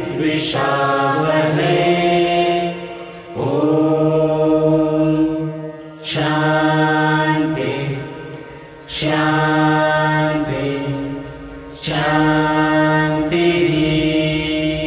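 A group of adult voices chanting a prayer together in unison, singing long held notes in phrases of about three seconds, with a short breath gap between phrases.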